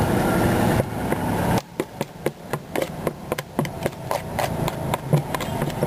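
Steady street-traffic rumble that drops away abruptly after about a second and a half. A run of sharp knocks and clicks follows, several a second and irregular.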